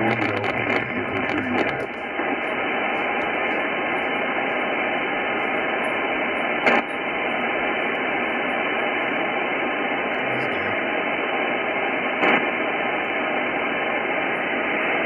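Steady hiss of an Icom IC-9700 transceiver's receiver tuned in upper sideband to the RS-44 satellite downlink, with no station coming through. Two short clicks, about seven and twelve seconds in.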